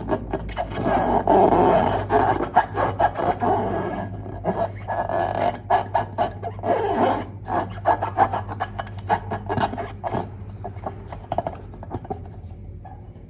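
Glossy slime being squished and kneaded by hand, giving a dense run of wet, sticky crackles and small pops that dies down near the end.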